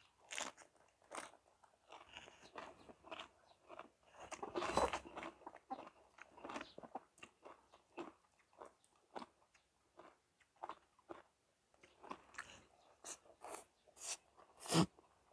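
Close-up chewing and crunching of a mouthful of raw vegetables and papaya salad, many short crunches in an uneven run, with a louder slurp of rice noodles near the end.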